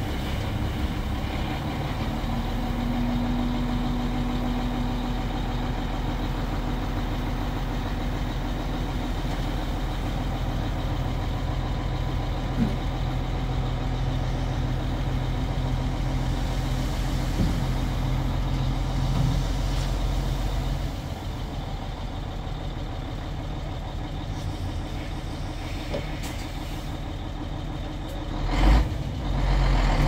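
Dump truck's diesel engine running steadily while the tipper bed is raised and the load is emptied; about 21 seconds in the engine note drops and goes quieter. Near the end come a few louder thumps.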